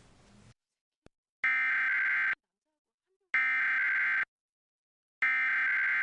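Emergency Alert System SAME header: three identical bursts of digital data tones, each about a second long and about a second apart, marking the start of an alert, here a Required Monthly Test.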